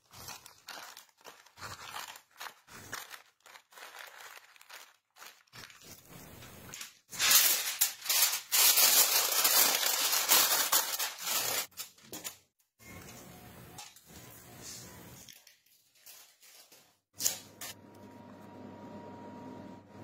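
Parchment paper rustling in short handling sounds, then a loud run of aluminium foil crinkling and crumpling as it is pressed over a roasting dish. A quieter steady hum comes in near the end.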